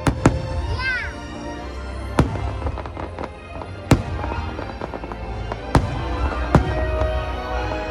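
Fireworks shells bursting in sharp bangs, about six spread irregularly through the stretch, over the fireworks show's music.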